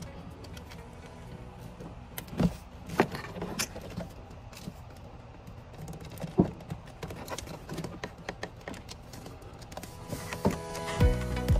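A few scattered metallic clicks and knocks from hand work on the engine's coolant hoses and clamps, over a low steady background. Background music comes in near the end.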